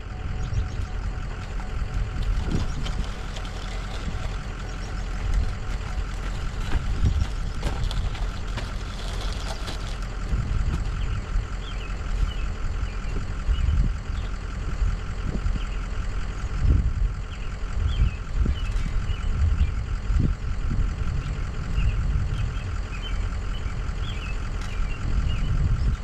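A truck running as it is driven: a steady engine drone over an uneven low rumble of road and wind noise.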